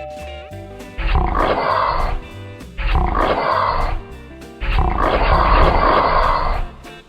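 Background music with three loud animal sound effects laid over it, each lasting one to two seconds.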